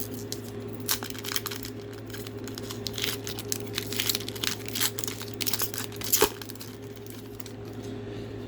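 Foil wrapper of a Pokémon trading card booster pack being torn open and crinkled, a run of irregular crackles with a sharper crackle about six seconds in.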